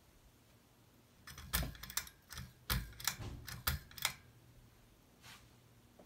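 A quick run of about ten sharp clicks and knocks lasting about three seconds, over the faint steady hum of a ceiling fan running.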